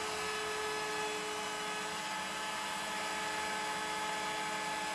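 Table-mounted wood router with a 1/4-inch roundover bit running at a steady speed: an even, unchanging motor whine with a hiss.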